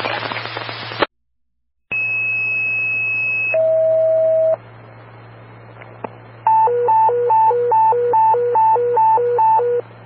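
Fire dispatch pager tones over a scanner: a two-tone sequential page, a long high tone then a shorter lower tone, sets off a fire company's pagers. After a stretch of radio hiss, a hi-lo alert tone follows, switching between a high and a low pitch about two and a half times a second. The tail of a dispatcher's voice ends about a second in.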